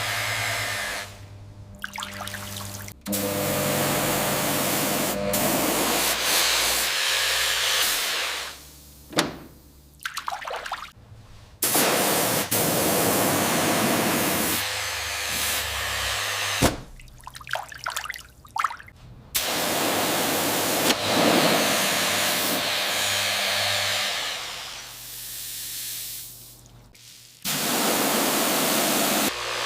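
Hissing spray and water noise in several separate stretches a few seconds long, each starting and stopping abruptly, with quieter gaps between them.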